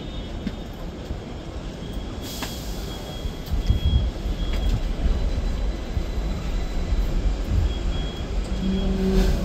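Hong Kong double-decker tram pulling away and running along its street rails, heard from the upper deck: a low rumble of wheels and traction motor that swells about a third of the way in, with a brief hiss early on and a short low tone near the end.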